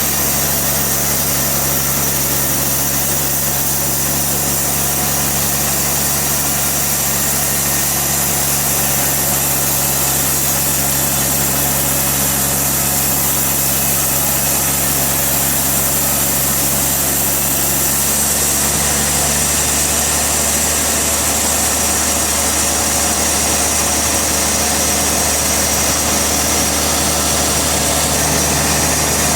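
Sawmill machinery running steadily with a constant engine hum; its tone shifts slightly about 18 seconds in.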